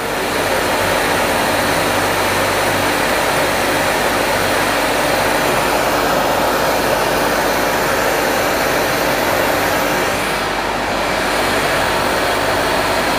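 Francis turbine test rig running steadily at about 1000 RPM, its supply pump and turbine making a continuous noisy machine hum with a few faint steady tones. It eases off slightly about ten seconds in.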